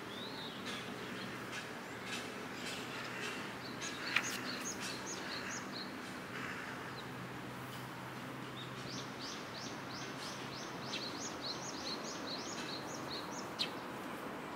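A small songbird singing two runs of quick, high, falling chirps over a steady outdoor background hum.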